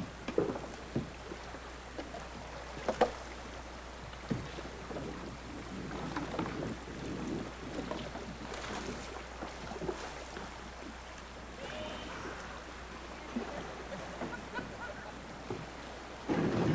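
Canoe paddles dipping and splashing as tandem canoes are paddled through a shallow riffle, over the steady wash of moving water. A few sharp knocks stand out, and the splashing gets louder near the end.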